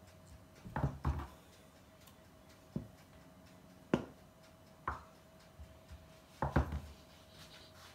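A chef's knife cutting through soft butter and knocking on a cutting board: about seven sharp, irregular knocks.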